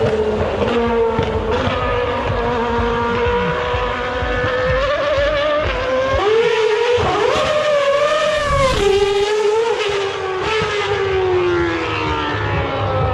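High-revving racing car engine heard from a distance, its pitch sliding slowly down, then rising and falling in quick revs about halfway, then sliding down again.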